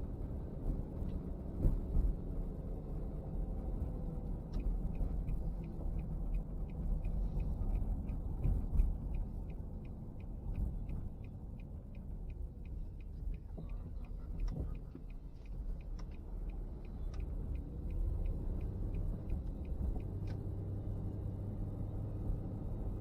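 A car driving, giving a steady low road and engine rumble. For several seconds in the first half, a faint, fast, even ticking of about five ticks a second sits above the rumble.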